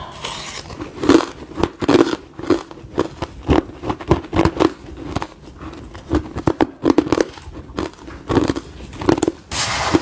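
Crushed ice crunching between the teeth as a mouthful is chewed, a rapid irregular run of sharp crunches. Near the end comes a short gritty scrape as more ice is scooped.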